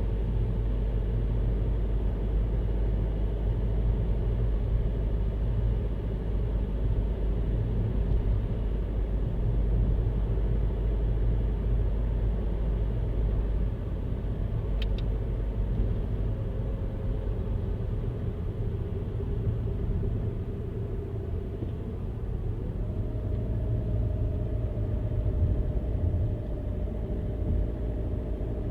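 Car driving, with a steady low rumble of road and engine noise. About three-quarters of the way through, an engine tone rises and then holds steady. There is a brief tick about halfway.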